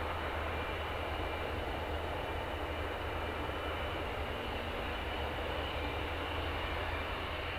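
Panavia Tornado's twin RB199 turbofan engines running steadily: a constant jet rumble with a faint high whine.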